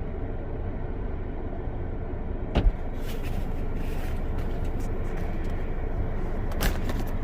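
Steady low rumble of a car idling, heard from inside the cabin. About two and a half seconds in a car door clunks open and a hiss of wind comes in, with another clunk near the end.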